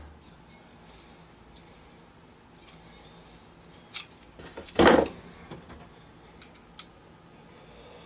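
Small metallic clicks of hand tools being handled and worked on copper refrigerant tubing, with one louder clack near the middle.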